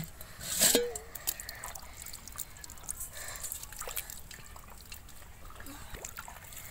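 Shallow water trickling and dripping, with many small scattered splashes and one louder splash about half a second in.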